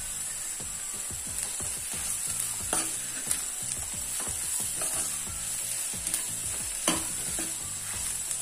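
Sliced onions frying on low heat in a nonstick pan as chilli powder is stirred in with a steel spoon: a steady sizzle with the spoon scraping through, and a few sharp clicks where it knocks the pan.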